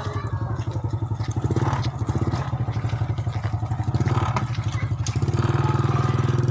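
A small engine running steadily with a rapid, even pulse; it gets a little louder about five seconds in.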